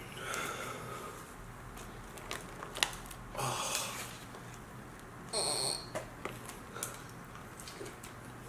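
Close-miked eating sounds: chewing with scattered wet mouth clicks and a few short, louder squishy bursts, about three and a half and five and a half seconds in.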